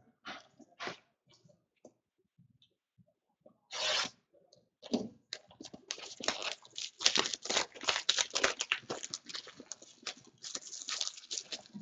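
Plastic wrapping being torn off a small cardboard trading-card box: a few light handling clicks, a short rip about four seconds in, then a long stretch of crackly crinkling and tearing.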